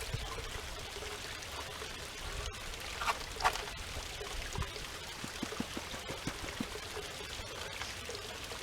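Water trickling steadily from a small waterfall down a granite wall into a pool, with a couple of brief splashes about three seconds in.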